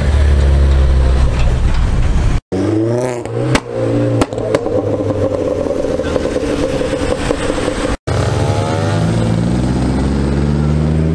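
Modified cars driving past one after another, engines revving and accelerating, cut into three short clips. The middle clip has a few sharp cracks over a rising rev, and near the end an engine note climbs as another car pulls away.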